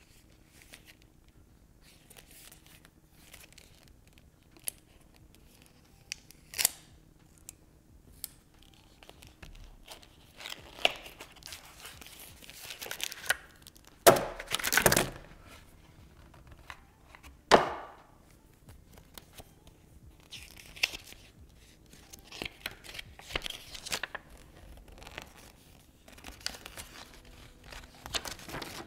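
Unboxing a Monopoly Deal card game: the cardboard carton being opened out, the wrapped card deck handled and the paper rules leaflet unfolded, with crinkling, rustling and scattered clicks and taps. The loudest sounds are short tearing rips, two of them, about halfway through and a few seconds later.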